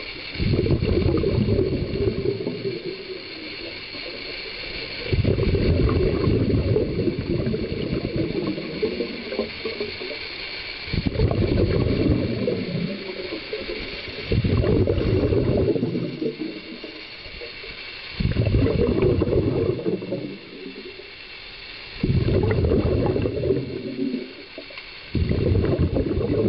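Scuba regulator exhaust bubbles heard underwater as a diver breathes. Loud bubbling bursts of about two seconds come every four to six seconds, seven times, with quieter stretches between them while the diver inhales.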